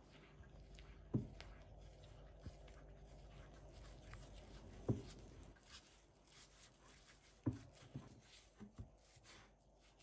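Silicone spatula stirring flour into wet cookie dough in a glass mixing bowl, a soft scraping and scratching, with a few sharp knocks of the spatula against the bowl, the loudest about a second in and about five seconds in.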